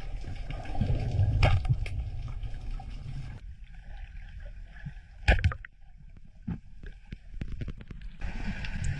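Water sloshing and gurgling with a low rumble and scattered clicks and knocks, one sharp knock about five seconds in; the sound changes abruptly twice.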